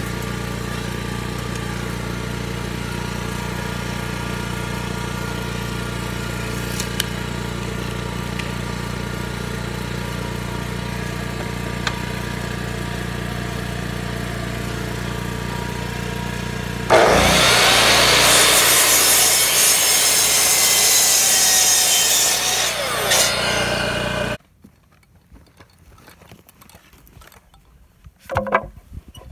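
A steady machine hum, then about 17 seconds in an electric miter saw cuts through a wooden board for about seven seconds, its blade winding down as the cut ends. Near the end there is a single wooden knock as a cut board is set down.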